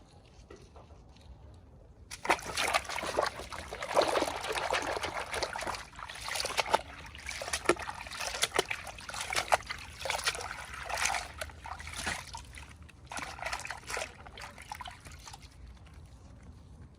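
Water trickling and sloshing in irregular bursts, starting about two seconds in and dying away near the end.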